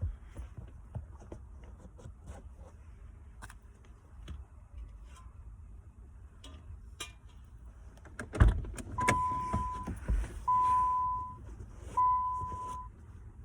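Light handling clicks and rustling, then a heavy thump a little past the middle, followed by a steady high electronic beep that repeats about every second and a half.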